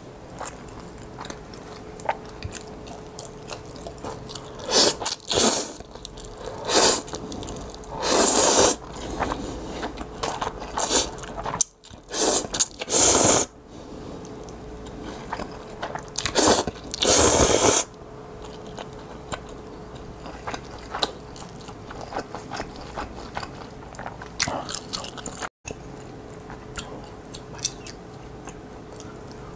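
A person eating instant ramen close to a clip-on microphone: several loud slurps of noodles, the longest around the middle, with wet chewing and smacking between them and after.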